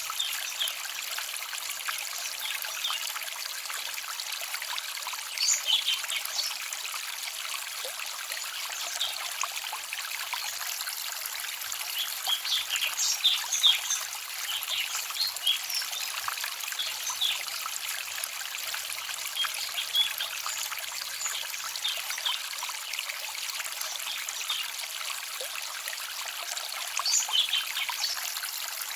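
Small forest stream trickling and babbling steadily, with little birds chirping briefly now and then, in a few short clusters.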